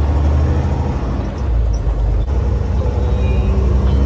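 Semi truck's diesel engine droning low and steady inside the cab, with road noise, as the truck pulls onto the highway.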